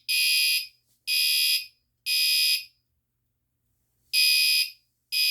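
Fire alarm horn sounding in the temporal-three evacuation pattern: three half-second buzzy blasts a second apart, a pause of about a second and a half, then the next set of three begins. It has just been set off by pulling the manual pull station.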